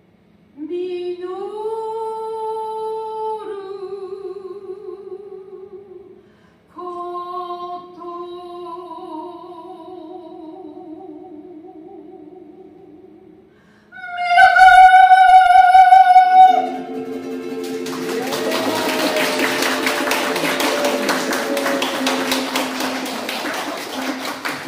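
A singer holds long notes with vibrato, phrase after phrase, rising to a loud sustained high note about fourteen seconds in. As that note ends, applause breaks out over a held final chord.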